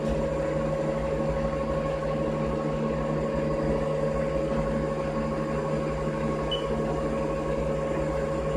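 CNC milling machine running with its spindle turning: a steady hum with a constant whine.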